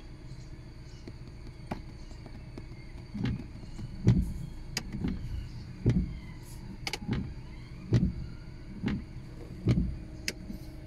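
Peugeot 308 1.6-litre engine idling, heard from inside the cabin, with a steady low hum and short low thumps about once a second from about three seconds in. The idle is hunting, which the owner puts down to some sensor.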